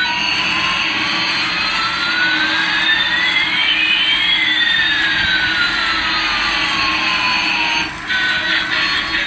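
Electronic jet-engine sound effect from a toy radio-control Airbus A380: a steady hiss with one tone sliding up and another sliding down, crossing midway, that cuts off shortly before the end.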